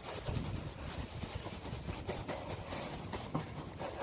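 Can of tire-sealant being shaken hard, heard as a fast run of short, even strokes: the contents being mixed before it is put into the tire.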